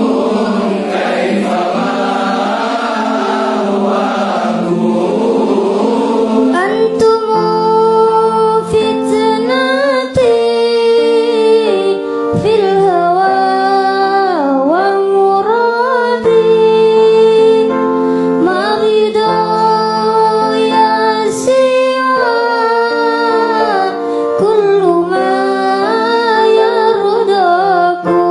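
A group of voices singing an Arabic devotional song (sholawat) in unison: a dense, blended chorus for the first six seconds or so, then clearer voices carrying long, winding, ornamented melodic lines.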